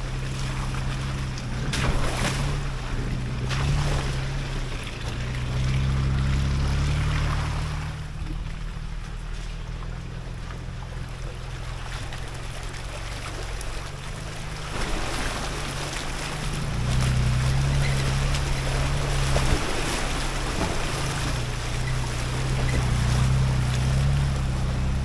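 4x4 SUV engine running at low revs as it crawls along a rough trail, with a rush of tyre and ground noise over it. The rush eases for several seconds around the middle, then builds again.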